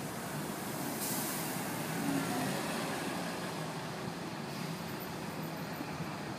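Road traffic noise: a car pulling away from the kerb while a bus runs close by, a steady engine and tyre rumble.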